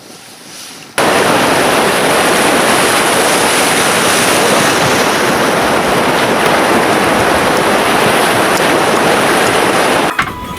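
Loud, steady rush of fast-flowing water. It starts abruptly about a second in and cuts off suddenly near the end.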